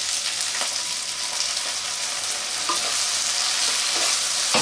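Okra pieces sizzling in hot mustard oil in a nonstick kadai as poppy seed paste is stirred in, with a steady high sizzle and a few soft scrapes and knocks of the wooden spatula against the pan.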